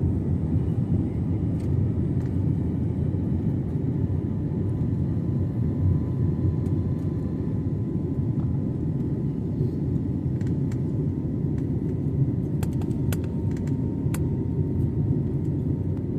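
Steady low rumble of airflow and engines inside the cabin of an Airbus A321neo with Pratt & Whitney PW1100G geared turbofans, with a faint steady whine above it. A few brief clicks come near the end.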